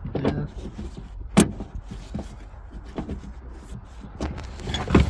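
Clicks and knocks of seat belt hardware and interior trim being fitted into place in a car's rear seat area, with one sharp knock about a second and a half in and a couple more near the end, over a low steady hum.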